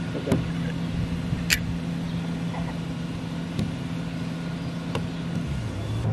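An engine runs steadily in the background with a low, even hum that drops in pitch about five and a half seconds in. A few light clicks and scrapes come from a putty knife spreading caulk on the van roof.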